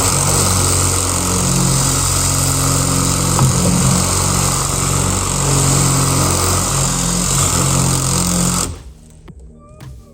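Electric drill boring into a metal lock cylinder, its motor running hard with the pitch dipping and recovering as the bit loads up, then stopping abruptly near the end.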